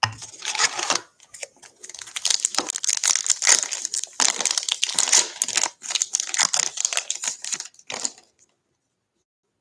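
A baseball-card pack's wrapper crinkling and crackling as it is handled and torn open, with the noise stopping about a second before the end.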